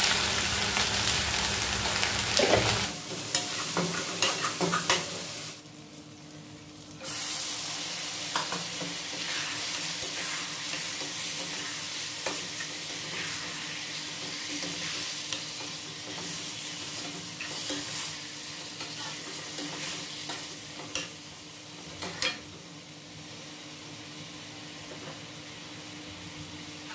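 Food frying and sizzling in a steel kadai on a gas stove while a metal ladle stirs it, with scrapes and clicks of the ladle against the pan. About three seconds in it gets quieter, and it drops away briefly near six seconds. After that, chicken pieces in masala keep frying with occasional ladle scrapes.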